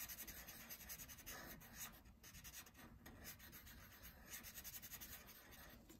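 Faint scratching of a black Sharpie felt-tip marker on paper, drawing and colouring in a shape.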